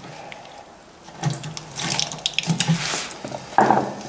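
Liquid splashing and trickling, with small knocks, as the oil pan of a Ford 800 tractor engine is worked loose from its gasket: leftover engine oil running out of the pan.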